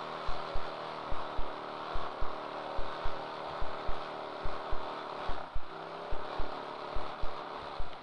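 A trophy kart's engine running at a steady pitch, heard through the driver's helmet intercom microphone, dipping briefly about five and a half seconds in. Over it come sharp low thumps in pairs, about one pair a second.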